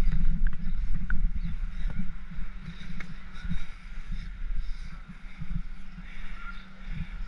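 Wind buffeting the microphone, a heavy fluttering rumble, with a few faint clicks.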